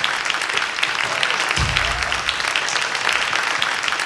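Concert audience applauding, a dense, steady patter of many hands clapping, with a brief low thump about one and a half seconds in.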